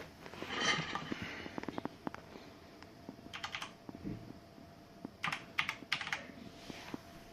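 Typing on a Corsair K70 Lux mechanical keyboard with Cherry MX Brown tactile switches: irregular key strokes in short bursts, fairly quiet for a mechanical keyboard.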